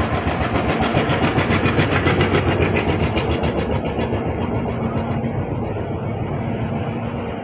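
Speedboat engine running at slow speed while the boat edges along a narrow channel, with a steady pulsing beat. About four seconds in it grows duller and a little quieter as it eases off.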